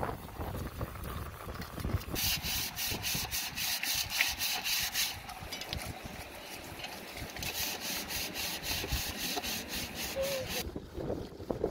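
Rapid rhythmic scrubbing strokes, about five a second, in two spells of about three seconds each, over a steady low rumble.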